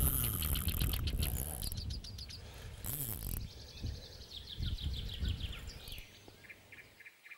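Small birds singing, with rapid repeated high notes and a descending trill a few seconds in, over a low rumble on the microphone that fades out after about six seconds.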